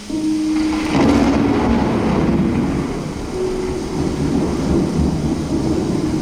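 Thunderclap in a storm soundtrack: a sudden loud crack about a second in, then rolling rumble, over a held low musical drone.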